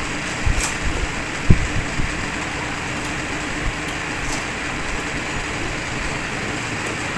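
Steady fan-like whooshing noise, with a few soft low thumps and faint clicks of eating and handling food in the first two seconds.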